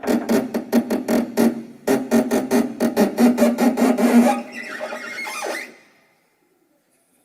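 String instruments played as sound effects: rapid knock-like strokes, about seven a second, in two runs with a short break, heard as knocking on a door. From about four and a half seconds they give way to a creaking glide, a door creaking open, that stops near six seconds.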